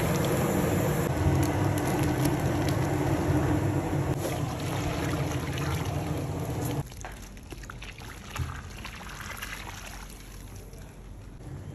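Huge pot of bubur lambuk rice porridge boiling over a gas burner, a steady rushing noise that drops off abruptly about seven seconds in. Liquid trickles into the pot as it is poured from a plastic bag.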